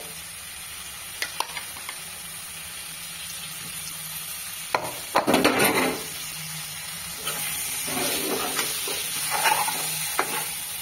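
Raw mutton pieces sizzling in hot oil and onion-spice masala in a non-stick wok, with a spoon stirring and scraping them around. There are a few sharp spoon clicks and a louder second of scraping and sizzling about five seconds in, and the sizzle grows stronger in the second half.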